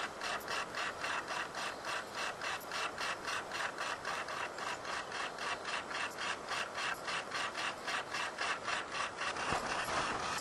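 Camcorder zoom motor running, a steady mechanical ratcheting of about five even clicks a second.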